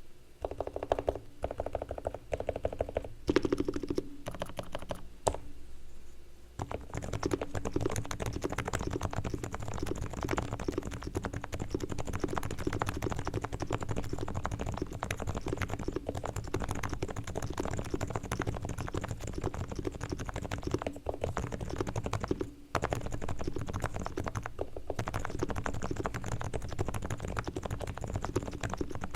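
Typing on a Realforce R3 silent Topre keyboard with 45 g keys: a few separate keystrokes at first, then fast continuous typing with two short pauses near the end.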